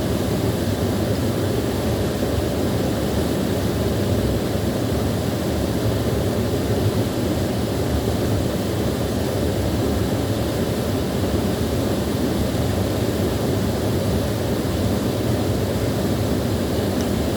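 Small waterfall running steadily: a constant rush of falling water, heaviest in the low range.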